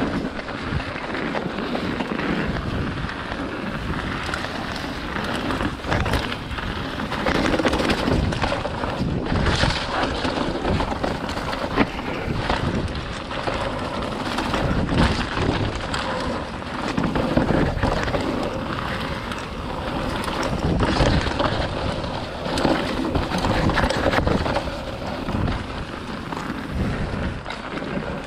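Mountain bike riding fast down a dirt trail covered in dry leaves: tyres rolling over leaves and dirt, and the bike knocking and rattling over bumps in many sharp clicks. Wind buffets the microphone throughout, swelling and easing with the bike's speed.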